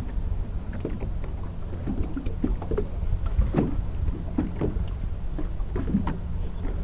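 Water slapping and lapping against the hull of a boat at sea, in short irregular splashes over a steady low rumble of wind and swell on the microphone.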